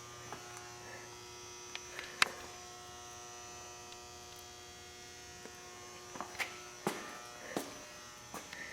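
Steady electrical hum with a few light clicks and knocks: a sharp one about two seconds in, and several more between six and eight seconds.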